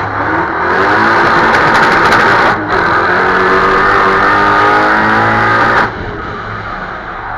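Supercharged 4.2 V8 of an Audi A4 B5 drift car, heard from on board, revving up hard under throttle. It breaks briefly about two and a half seconds in, then climbs again and drops back about six seconds in.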